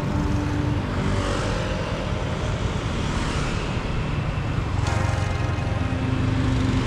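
Riding a motorbike through traffic: steady engine and road rumble with rushing noise, and another vehicle's engine hum joining in the second half.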